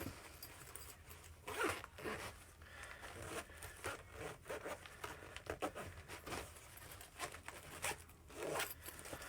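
Zipper on a small first aid kit pouch being drawn open and shut, several short zips with handling rustle between them.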